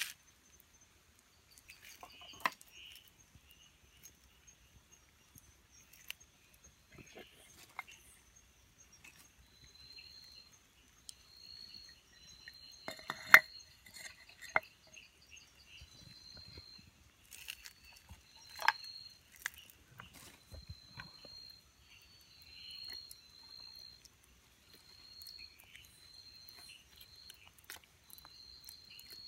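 Night insects calling: a steady high drone with a repeated short chirp at one pitch from about a third of the way in. Scattered sharp clicks and knocks, the loudest a little under halfway through.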